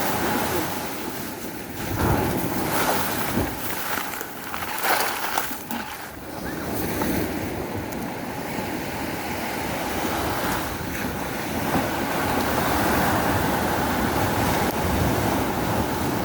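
Sea surf washing on the shore, with wind buffeting the microphone in a few gusts in the first few seconds.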